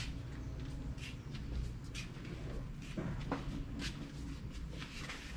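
Supermarket aisle ambience: a steady low hum with scattered light clicks and taps.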